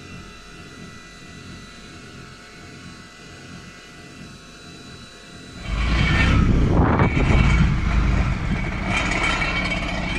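Steady low hum with faint high whining tones inside a tank's crew compartment. About six seconds in, a sudden loud, gusty rumble takes over and surges twice.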